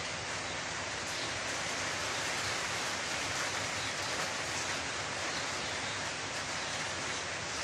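Steady, even hiss of background noise, with no distinct knocks or scrapes standing out.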